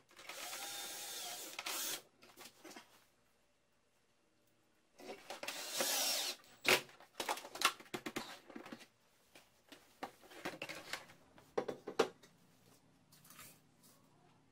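Cordless drill-driver whirring as it drives a screw through a wooden acacia bracket, a run of about two seconds, with another short run about five seconds in. Then scattered knocks and clicks of the wood and tools being handled.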